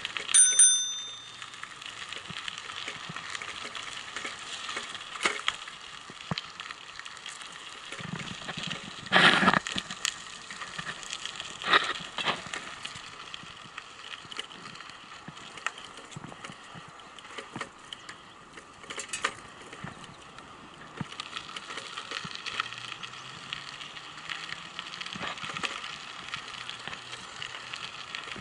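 A bicycle bell rings once, briefly, near the start. Then bicycle tyres crunch steadily along a gravel path, with a few louder knocks and rattles as the bike goes over bumps.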